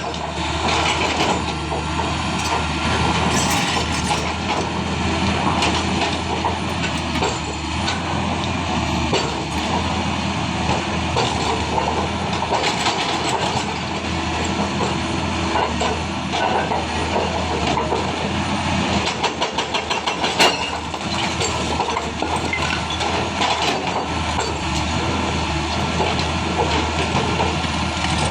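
Caterpillar excavator's diesel engine running while its hydraulic breaker hammer pounds, with a steady low engine hum under a rattle of rapid metallic strikes.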